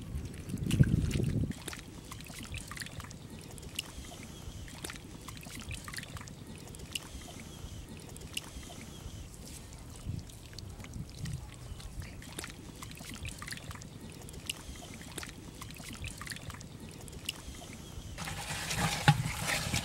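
Hands working wet mud in shallow water: sloshing in the first second or so, then soft wet squelches and small clicks as the mud is pressed and smoothed, with louder splashing and trickling near the end.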